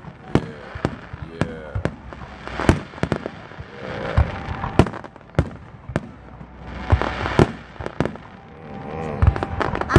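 Fireworks display: aerial shells launching and bursting in an irregular series of sharp bangs, about two a second.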